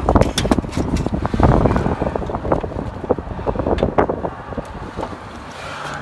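Clicks and knocks of a gloved hand working plastic wire connectors on a furnace control board, over a low rumble. It dies down near the end.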